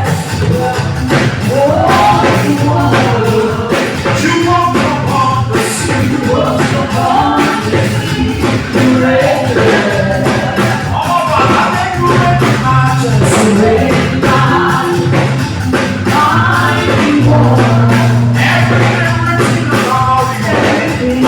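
Live band music with singing over a steady percussion beat and a sustained bass line.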